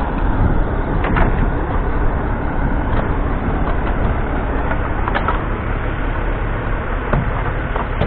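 A vehicle engine running steadily with a low rumble, with a few faint clicks and taps over it.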